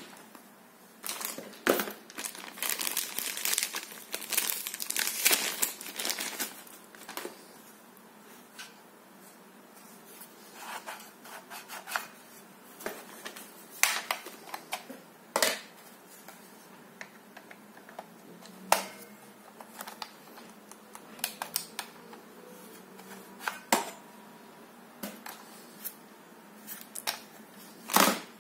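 Thin plastic packaging bag crinkling as it is handled, densest for the first several seconds, then scattered clicks and taps of plastic parts and the cardboard box being handled, with a sharper knock near the end.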